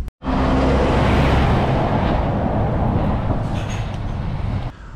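Lorries driving in traffic: a loud, steady rush of engine and tyre noise with a low hum underneath. It starts abruptly and eases off near the end.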